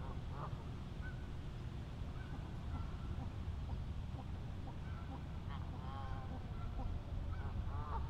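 A few faint calls from waterfowl, the clearest about three-quarters of the way through, over a steady low rumble.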